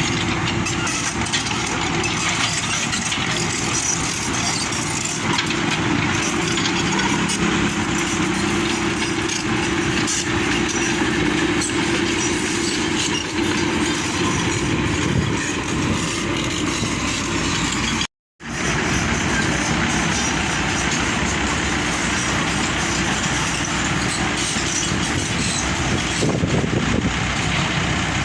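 Truck engine running steadily under way, with road and wind noise; the sound drops out for a moment about 18 seconds in.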